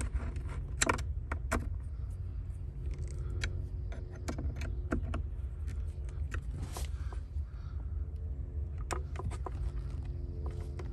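Small screwdriver clicking and scraping on an amplifier's power and ground terminal screws as wires are fastened, in scattered sharp ticks over a steady low hum.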